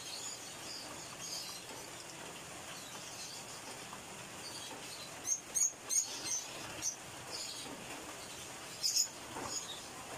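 Small birds chirping: short, high chirps with a quick run of sharp ones about five to six seconds in and another near nine seconds, over a steady background hiss.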